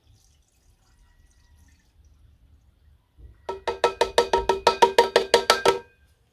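Metal can of engine flush glugging as it is upended into the oil filler: a fast, even run of hollow, ringing gulps, about nine a second, that starts about three and a half seconds in and stops abruptly just over two seconds later as the can empties.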